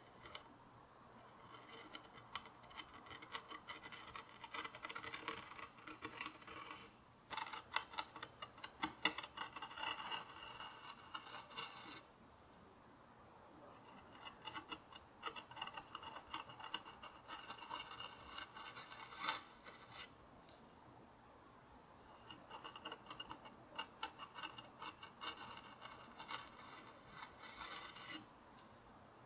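A 3 mm carving knife cutting grooves into a walnut stool seat: quick, scratchy little strokes of the blade through the wood, in three runs with short pauses between.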